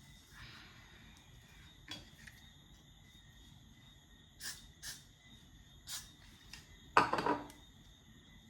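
Small objects being handled at close range: a few short, sharp clicks and taps, then a louder half-second rustling clatter about seven seconds in.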